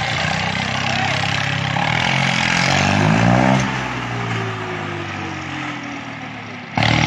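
Tractor diesel engine revving up under load, its pitch climbing for about three seconds, then falling away slowly as it eases off, over the steady murmur of a crowd. A sudden louder rush of noise cuts in near the end.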